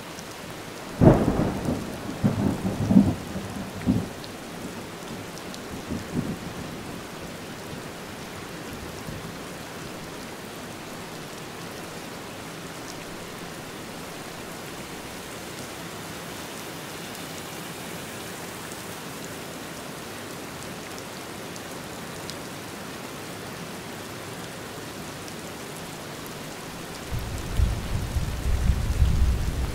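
Steady rain falling during a thunderstorm. A sharp thunderclap about a second in is followed by several seconds of rumbling, and a second low thunder rumble builds near the end.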